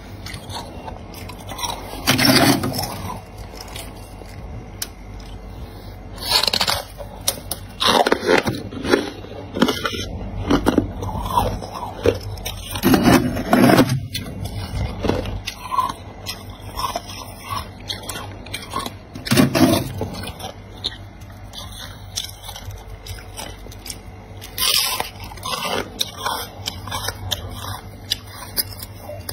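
Thick freezer frost crunching and crackling: loud crunches come at irregular intervals, several seconds apart, with softer crackles and scrapes between them.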